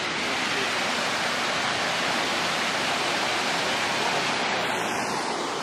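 Small waterfall cascading in two tiers over stone ledges: a steady rush of falling water.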